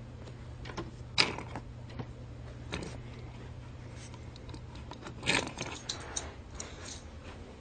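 Scattered clicks and rattles of small hard objects being handled, over a steady low hum; the two loudest clatters come about a second in and just past the middle.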